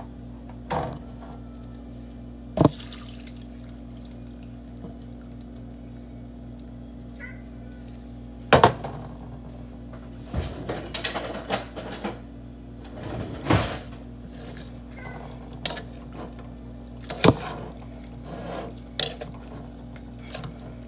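Stockpot cooking sounds: scattered knocks, clinks and short pours as ingredients go into a metal pot and a spoon works in it, over a steady low hum.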